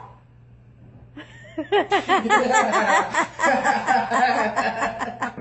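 Loud human laughter breaking out about a second and a half in, a rapid run of repeated high-pitched ha-ha's.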